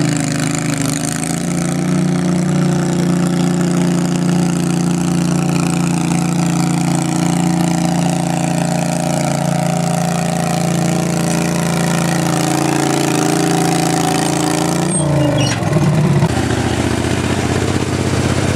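Garden pulling tractor engine running steadily at high revs under load as it drags a weight sled. About fifteen seconds in its pitch drops sharply as the revs fall away, and a lower engine sound carries on afterwards.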